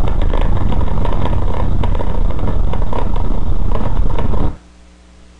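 Car cabin noise while driving over a wet cobblestone street: the engine running and the tyres rumbling over the stones, with frequent short knocks and rattles. It cuts off suddenly about four and a half seconds in, leaving only a faint low hum.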